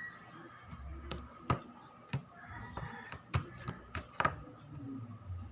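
Sticky homemade glue-and-detergent slime being kneaded and pulled by hand, giving about six short sharp snaps and pops in the middle of the stretch.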